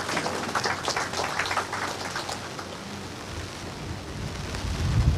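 Rain pattering steadily, with scattered sharp ticks in the first couple of seconds and a few low thumps near the end.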